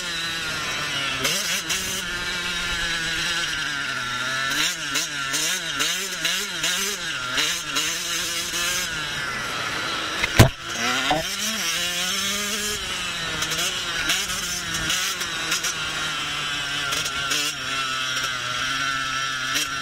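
Husqvarna TC 85 two-stroke motocross engine running hard on the track, its pitch rising and falling as the throttle is worked, wavering quickly in places, with a hissy rush over it. About halfway through there is one sharp thump, after which the engine revs back up.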